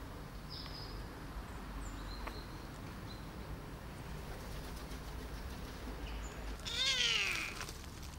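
A tiny kitten meows once near the end, a single loud cry that falls in pitch.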